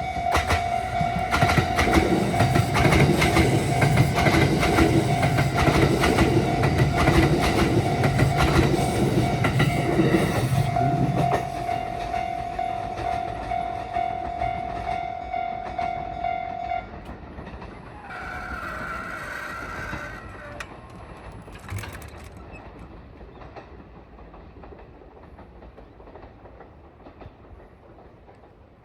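Kintetsu 50000 series Shimakaze electric limited express passing over a level crossing, its wheels clattering rhythmically over rail joints for about the first ten seconds. Throughout the passage the crossing's warning bell rings steadily and stops about two-thirds of the way through. The train sound then fades away.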